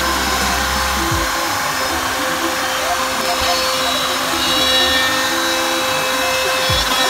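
CNC gantry router milling solid wood, its spindle running with a steady whine, with background music over it.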